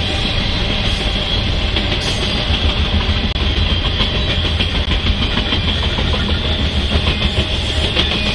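Intermodal freight train of trailers on flatcars rolling past, a steady low rumble with the wheels clacking in a quick rhythm over the rail joints.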